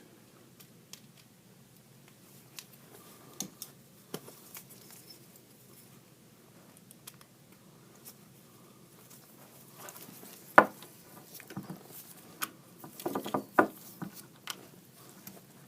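Scattered light clicks and scrapes of metal pistol parts being handled while the back plate of a 1911 pistol is worked off, with one sharp click about two-thirds through and a short cluster of louder clicks soon after.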